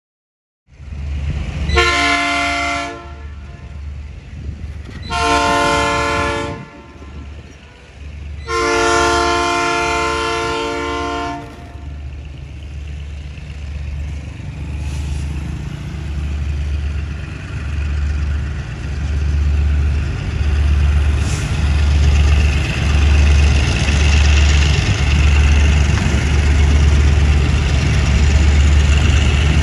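Diesel freight locomotive sounding its multi-tone air horn three times, two shorter blasts and then a longer one, as warning for a street level crossing. Its diesel engine's low, throbbing rumble then grows steadily louder as it approaches.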